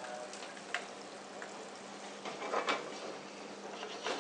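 Kitchen background while a pan cooks: a steady hiss and a low hum, broken by a few light knocks and clicks of utensils, three or so.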